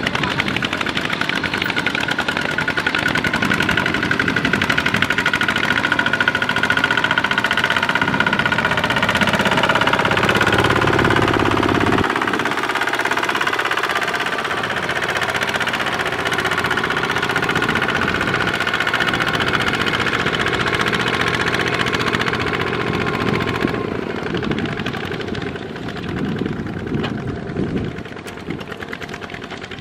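Kubota ZT155 single-cylinder diesel engine of a two-wheel walking tractor running under load as it pulls a loaded trailer through mud. The sound changes about twelve seconds in and grows somewhat quieter near the end.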